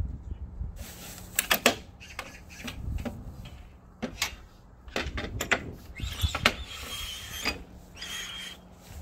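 Aluminium rip fence of a Bosch GTS 635-216 table saw being handled on the saw table: several sharp clacks as it is set down and fitted, then a scraping slide along the rails about six seconds in, and a shorter one near the end.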